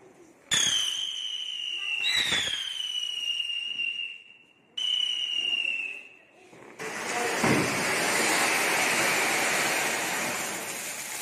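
A whistling firework gives out high, slightly falling whistles in a few runs over the first six seconds. Then, about seven seconds in, a flower pot (anar) fountain starts spraying sparks with a loud, steady hiss.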